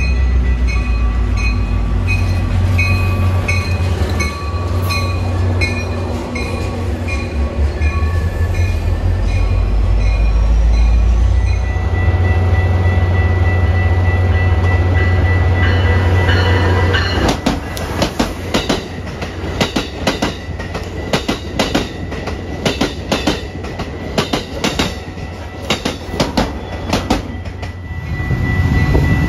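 A diesel train passing close by: a heavy, steady engine rumble for the first half, then rapid, uneven clacking of wheels over the rail joints as the cars go by.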